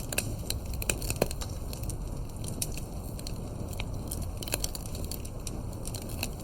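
Fireplace ambience: wood fire crackling with irregular sharp pops over a steady low rumble.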